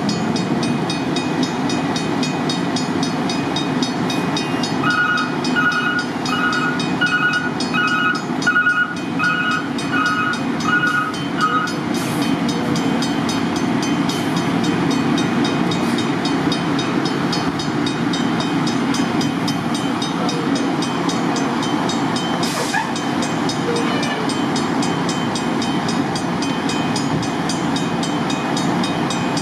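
Steady low rumble of idling heavy vehicles at a stopped commuter train. An electronic two-tone beep repeats about ten times, roughly one and a half a second, starting about five seconds in and stopping some six seconds later. There are a couple of short high hisses.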